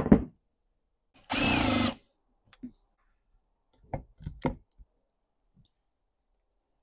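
A power drill-driver runs once for under a second, backing out a screw to take the recoil starter housing off a Stihl MS 261 chainsaw. A few short clicks and knocks follow as the parts are handled.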